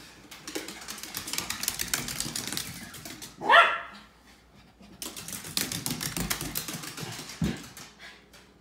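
Small dog running fast on a hardwood floor, its claws clicking and skittering in quick runs, with one loud, high, rising yip about three and a half seconds in.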